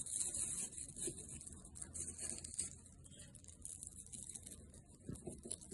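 Faint handling of the small parts of a BMW E36 window switch as a contact suppressor is pressed back into its seat: light scraping, with a few small ticks near the end, over a steady hiss.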